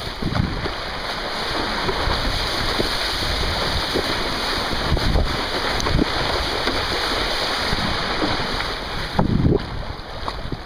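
Wind buffeting the microphone in irregular low gusts over a steady rushing hiss, aboard a kiteboat under way; the gusts are heaviest near the end.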